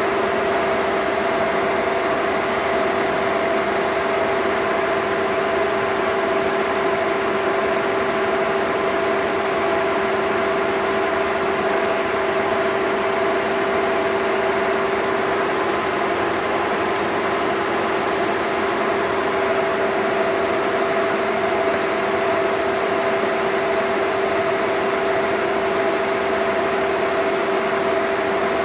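Bullard Cutmaster 42 vertical turret lathe running steadily: a constant machine whir with two steady humming tones and no change in speed.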